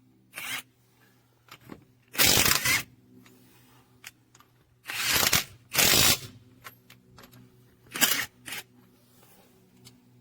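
Handling noise: several short bursts of rustling and scraping, the loudest about two seconds in, over a faint steady low hum.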